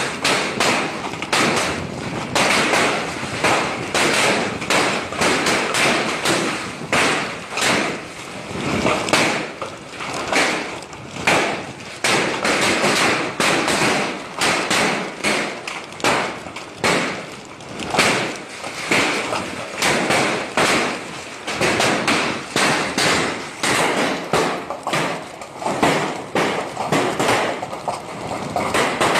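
Large hailstones pelting down in heavy rain: a dense, irregular run of loud thuds and knocks, several a second, over the steady hiss of the rain.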